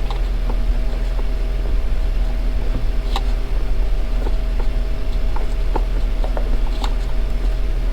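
A steady low hum throughout, with a few light clicks and taps as a compression tester's hose fitting is worked by hand into an engine's spark plug hole.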